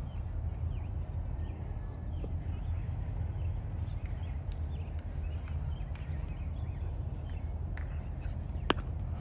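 Outdoor ambience: a steady low rumble on the microphone with faint scattered chirps, and one sharp, short crack near the end.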